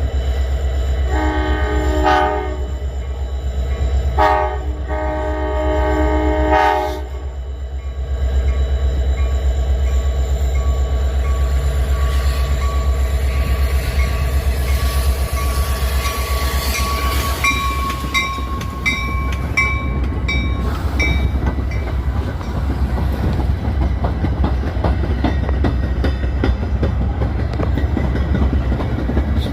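A Metra SD70MACH diesel locomotive sounds its multi-note air horn twice, a short blast about a second in and a longer one a few seconds later. The train then pulls away with a steady low diesel rumble and the clickety-clack of wheels on rail.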